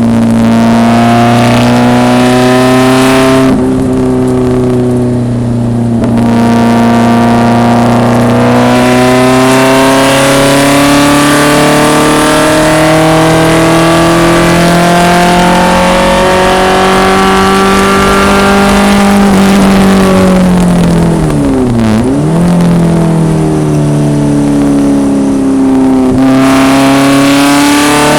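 1974 BMW 2002 race car engine running hard at speed, its pitch slowly rising and falling with the throttle. The engine note softens briefly twice, and about three quarters of the way through the pitch drops sharply and climbs again.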